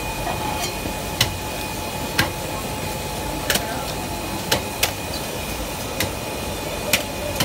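Meat cleaver striking a grouper on a wooden chopping block: seven sharp knocks at uneven intervals of roughly a second, over a steady background hum.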